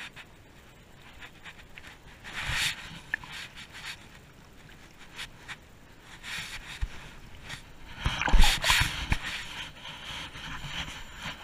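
Shallow seawater splashing and sloshing as a collapsible mesh crab trap is handled and dropped into the water, with wind noise on the microphone. It comes in a few brief bursts, the loudest about eight seconds in.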